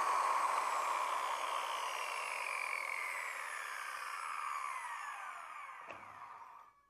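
Electric power tool winding down after being switched off: its whine falls slowly in pitch and fades away over about seven seconds. A faint click comes near the end.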